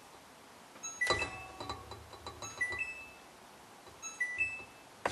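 A measuring cup knocking and scraping in a stainless steel mixing bowl while granulated sweetener is scooped: a sharp knock about a second in, lighter clicks after it, and another knock near the end. A faint, high two-note chime repeats about every second and a half.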